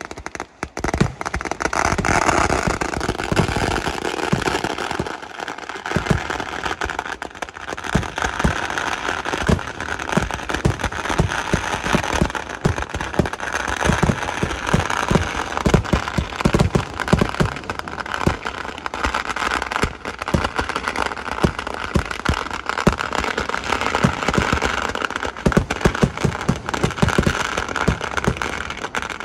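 Kerala vedikettu fireworks: a dense, unbroken barrage of explosions, many bangs a second over continuous crackling, as ground charges and aerial shells go off together. The barrage thickens within the first second or two.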